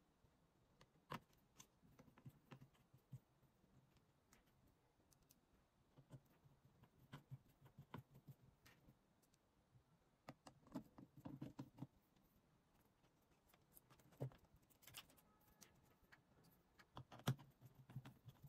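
Faint, irregular clicks and taps of a small screwdriver working tiny screws in a tablet's plastic housing, with the sharpest click near the end.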